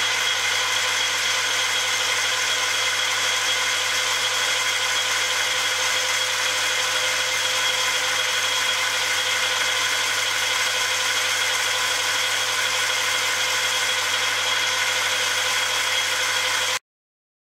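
Metal lathe running steadily with its chuck spinning, a steady mechanical whine with several held tones from the motor and gearing. The sound cuts off suddenly near the end.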